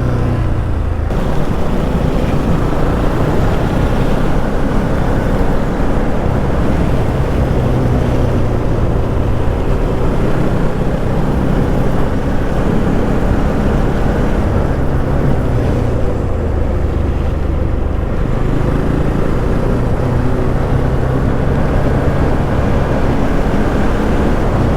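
Motorcycle engine running while riding, its low note rising and falling as the throttle changes, over a steady rushing noise.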